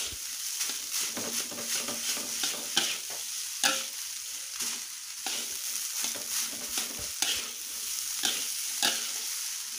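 Rice frying and sizzling in an aluminium wok while a metal spatula stirs and tosses it, scraping and clinking against the pan at irregular moments.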